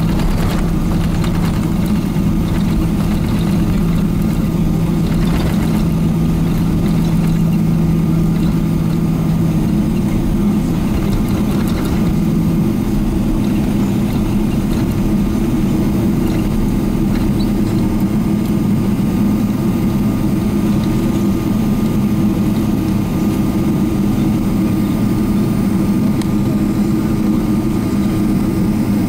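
Steady cabin noise inside a Boeing 777-300ER with its GE90 engines running. A low hum within it stops about ten seconds in.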